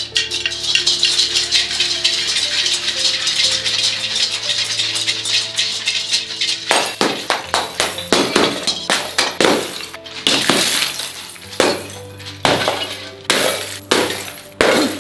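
Clay piggy banks smashed one after another on a tiled floor, the terracotta shattering and coins clinking and scattering. The first half is a dense, continuous clatter of coins; from about seven seconds in come separate sharp smashes, about one a second. Background music plays under it.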